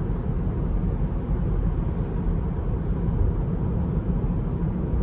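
Steady low road and tyre rumble heard inside a Tesla's cabin while driving at about 50 mph, with no engine note from the electric drivetrain.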